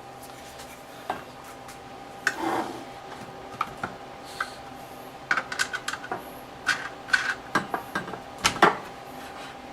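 Scattered clicks and light clinks of metal and plastic gun-vise parts being handled and fitted together during assembly. They are thicker in the second half, with the loudest knock near the end, over a faint steady hum.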